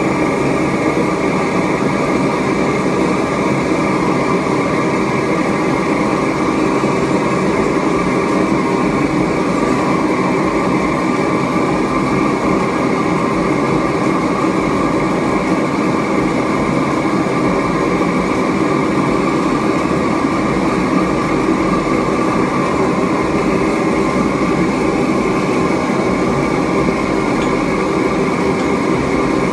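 Homemade propane-tank metal-melting furnace running at full blast during an aluminium and brass melt: a loud, steady rushing noise of forced air and flame that does not change.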